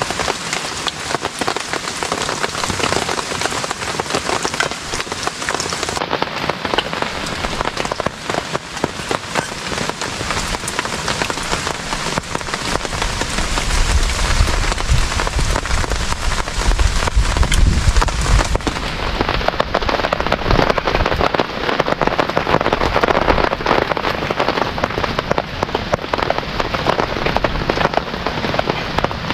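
Heavy rain falling steadily, a dense patter of many close drop impacts. A low rumble swells in about halfway through and fades a few seconds later.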